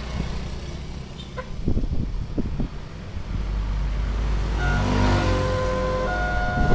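Motorcycles and a car passing over a level crossing, then about four and a half seconds in the railroad crossing's electronic warning alarm starts: steady tones stepping from pitch to pitch, the signal that a train is approaching. A heavy engine's low rumble runs under the alarm.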